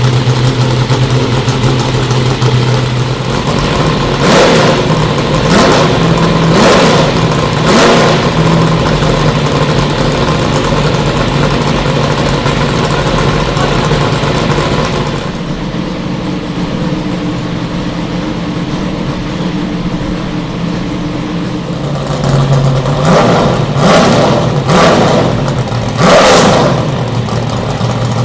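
Lotus Elise GT1's 5.7-litre Corvette V8 idling during its warm-up, with two runs of about four sharp throttle blips each, one about four seconds in and another near the end. Between them it settles to a steadier, quieter idle.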